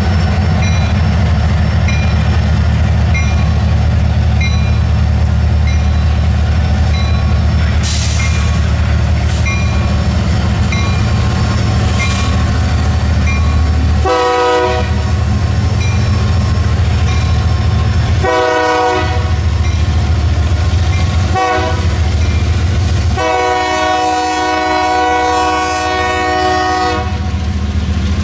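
Union Pacific freight locomotives led by an EMD SD70M pass close by with a steady heavy diesel drone. About halfway through, the lead unit's Nathan K3HA chime air horn sounds the grade-crossing signal: two long blasts, a short one, then a final long blast.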